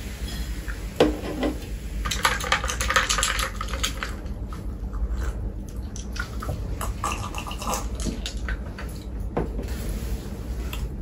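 Close-miked eating and food handling: a sharp knock about a second in, a dense run of crackling clicks a second later, then scattered smaller clicks over a steady low hum.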